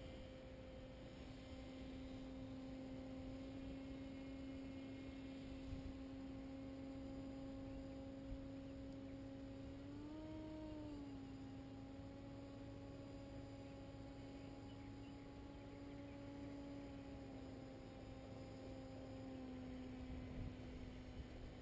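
Distant paramotor engine heard from the ground as a faint, steady drone. Its pitch rises briefly about halfway through, then settles back.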